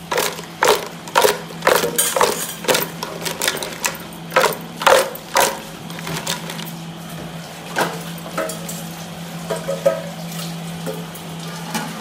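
Whole crabs in thick masala being mixed in an aluminium pot, the hard shells knocking and clattering against the pot: a quick run of sharp knocks, about two a second, for the first five seconds or so, then only scattered knocks, over a steady low hum.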